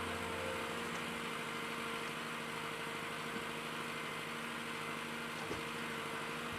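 Engine of heavy forestry machinery running steadily at a low, even level.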